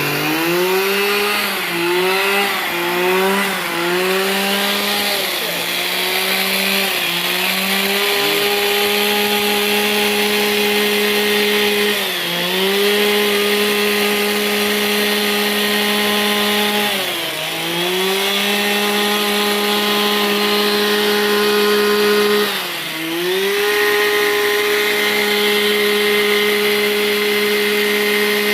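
A Stihl two-stroke gardening power tool running at high speed while pruning a shrub. Its pitch wavers up and down over the first four seconds or so, then holds steady, dipping briefly three times.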